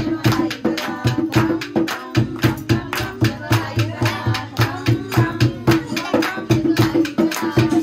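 Kirtan music: singing over a quick, steady hand-drum beat with other percussion.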